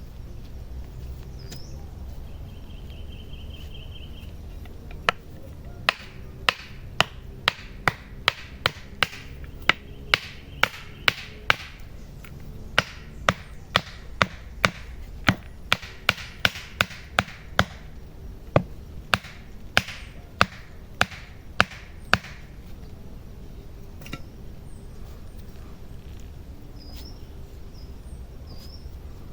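A long run of steady chopping blows into wood, about two a second, starting some five seconds in and stopping a few seconds past the middle, with one short pause partway through.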